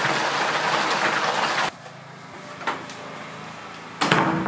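Heavy rain falling steadily, a loud even hiss, which cuts off abruptly about a second and a half in. After that, quiet indoor room tone with a faint low hum and a single soft knock.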